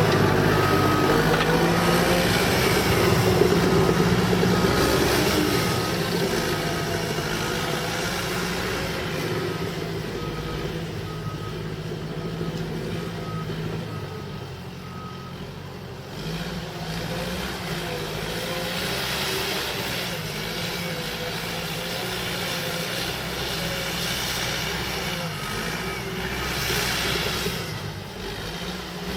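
Cat D5K bulldozer's diesel engine running under load, with its backup alarm beeping about once a second while it reverses. The beeping stops about halfway through and returns briefly near the end, and the engine eases down over the first half.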